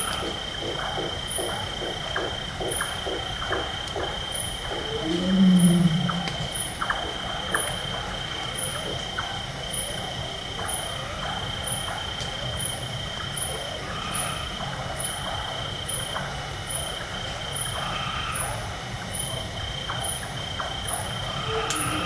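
Bengal tiger roaring: one deep, moaning roar about five seconds in, the loudest sound here, and another beginning right at the end. Between the roars is a night forest background with the regular chopping call of a large-tailed nightjar, most marked in the first few seconds.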